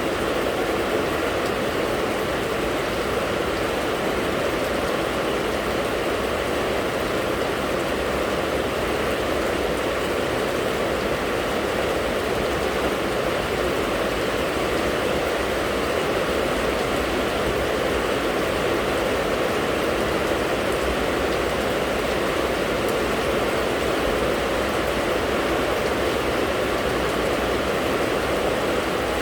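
Steady rain falling: an even, continuous rush of noise that stays at the same loudness throughout, with no single drops or other events standing out.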